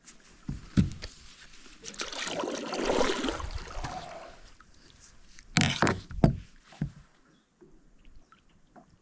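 Kayak or canoe being paddled: a paddle swishing through the water for a couple of seconds, with a few sharp knocks before it and three after it, typical of the paddle striking the hull.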